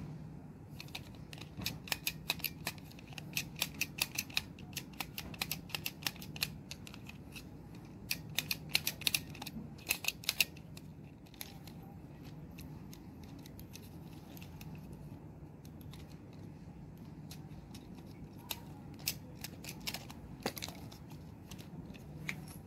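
Quick, sharp clicks and taps of a magnetic contactor's plastic housing and small metal parts being worked with a screwdriver, dense through the first ten seconds or so, then a few scattered clicks near the end. A steady low hum runs underneath.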